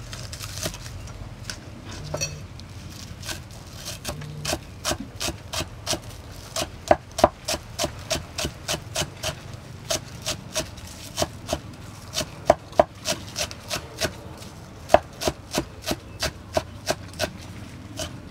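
Cleaver chopping green onions on a thick round wooden chopping board: sharp knocks of the blade on the wood, sparse at first, then a steady run of about three a second.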